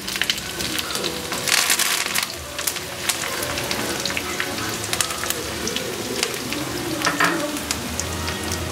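Sliced shallots and curry leaves frying in hot oil with popped mustard seeds: a steady sizzle with scattered crackles and pops, loudest about one and a half to two seconds in.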